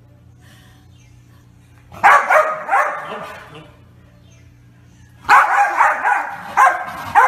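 A corgi barking excitedly in short, high yelps: three about two seconds in, then a fast run of barks from about five seconds in.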